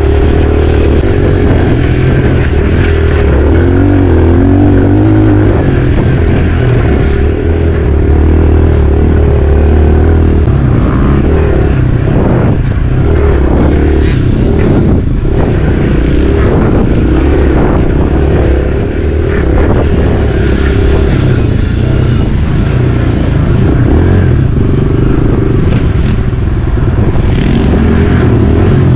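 Dirt bike engine running loud and steady, its pitch wavering up and down a few seconds in, with scattered clatter in the middle.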